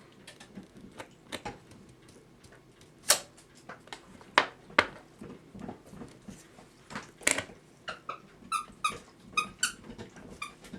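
Sharp metallic clicks and knocks as a clock mainspring and a C-clamp are handled and pressed down on the movement's plate. Near the end there is a run of short, high squeaks, several a second.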